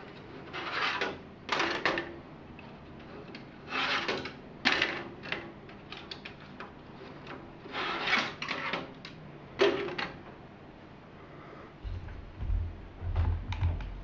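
Plastic and metal parts of a rackmount server case being pulled out and handled: irregular scrapes, rubs and clatters. Near the end a low rumble as the camera is moved.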